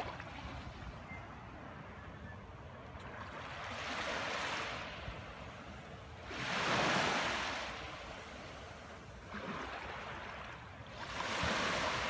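Small waves lapping and washing up onto a sandy beach from calm, shallow water: a soft hiss that swells and fades four times, loudest about seven seconds in.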